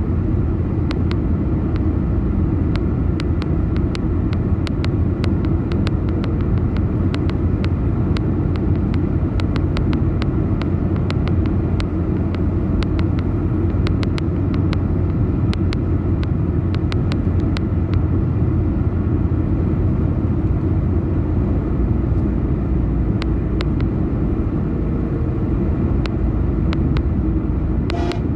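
Steady low road and engine rumble inside a car cabin cruising at highway speed, with scattered light ticks throughout.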